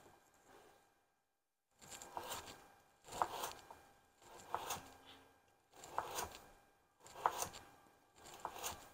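Kitchen knife slicing a raw carrot into rounds on a wooden cutting board: a crisp cut ending in a tap of the blade on the board, about one every second and a quarter, six cuts starting about two seconds in.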